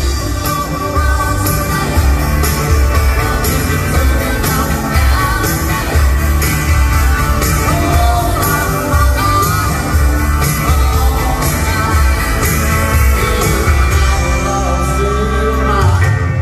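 Live rock band playing loud through an arena PA: drums keeping a steady beat under bass and electric guitar.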